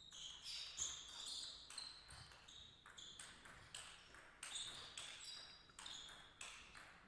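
Table tennis rally: the ball clicking off the bats and the table in a quick, irregular run of faint hits.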